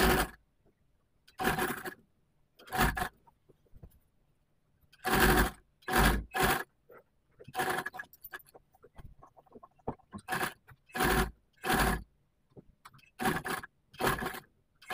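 Industrial sewing machine stitching a seam through cotton shirt fabric in about fourteen short runs, each under a second, stopping and starting as the cloth is guided.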